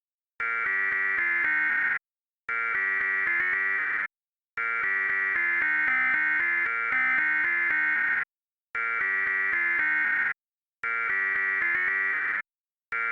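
Synthesized Emergency Alert System–style alarm tone, sounding in bursts of about a second and a half with short silent gaps between them. One burst in the middle runs about twice as long, and the lower notes shift in quick steps within each burst.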